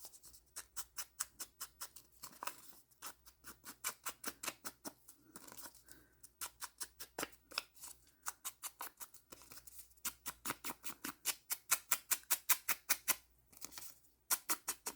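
Foam ink dauber dabbed and brushed along the edge of a piece of paper in quick light strokes, about five a second, in runs broken by short pauses.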